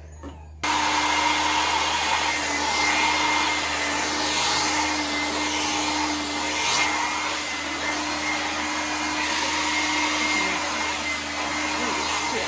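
Handheld hair dryer switched on about half a second in, then running steadily: a rush of air with a steady motor hum.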